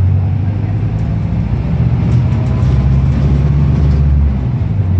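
Volvo B5LH hybrid bus's four-cylinder diesel engine and drivetrain pulling the bus along, heard from inside the lower saloon as a loud, steady low drone. Its lowest note drops away briefly near the end.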